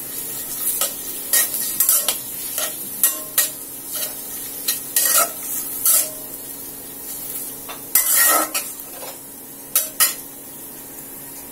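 Metal spatula scraping and tapping against a metal kadai as shredded carrot, papaya and radish with onion and green chilli are stir-fried in oil, over a steady sizzle. The strokes come irregularly, with one longer scrape about eight seconds in.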